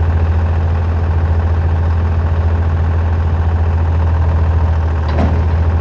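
Engine idling steadily with an even, throbbing low hum, and a brief clank about five seconds in.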